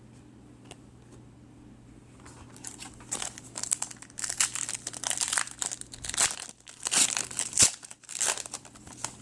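Trading card pack wrapper being torn open and crinkled by hand, starting about two and a half seconds in and going on in irregular crackling bursts.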